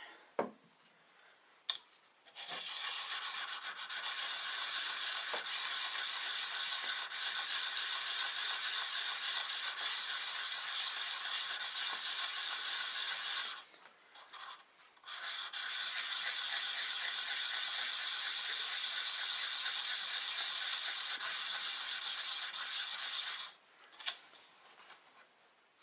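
A carbide cutter being rubbed by hand on a diamond sharpening card, giving a steady gritty scraping. It comes in two long spells with a short break between them.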